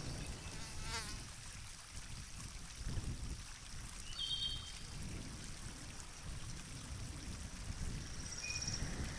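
Outdoor countryside ambience: a steady low wind rumble on the microphone, with a few short high chirps and a brief trill from birds or insects.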